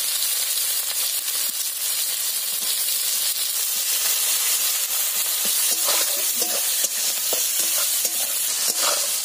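Sliced onions sizzling in hot oil in a metal kadai, a steady frying hiss. From about halfway, the metal spatula scrapes against the pan as the onions are stirred.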